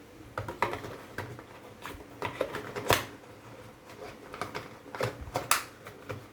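Irregular clicks and rustles of a small plastic car charger and its cable being handled, the sharpest click about three seconds in.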